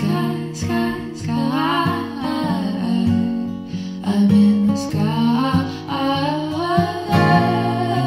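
Background music led by acoustic guitar, with a wavering melody line over sustained plucked notes.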